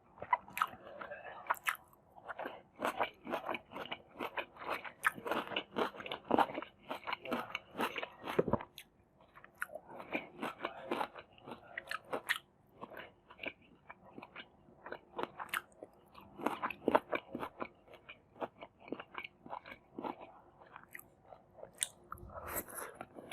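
Close-miked eating: a person chewing and biting into Maggi masala noodles with raw vegetables, a dense, irregular run of crunches and wet chewing clicks, with a short pause about eight seconds in.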